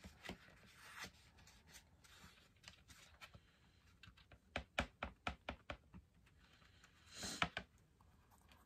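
Paintbrush working acrylic paint on a paper plate: faint light taps and clicks, a quick run of them about halfway through, then a brief rubbing sound near the end as the brush goes back to the canvas.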